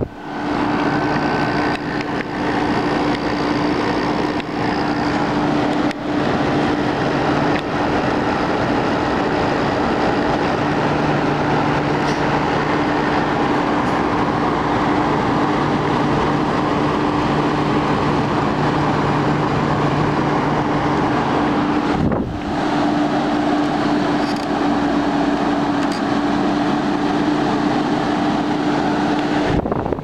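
Polarwind window air conditioner running: a steady rush of air from its fan with a constant hum underneath.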